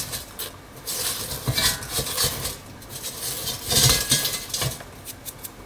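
Beef patties being flipped by hand in an air fryer basket: pastry crust scraping and knocking against the basket in scattered short clatters, the loudest about two thirds of the way through.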